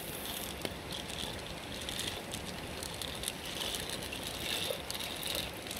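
Dry black beans poured from a bowl into a clay pot of water, falling in a rapid patter of small clicks and splashes.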